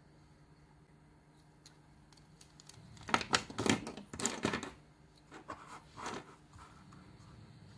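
A handful of plastic pens set down on a desk beside a binder, clicking and clattering for about two seconds, starting about three seconds in. A few softer scratches and taps follow as a pencil is picked up and put to the paper.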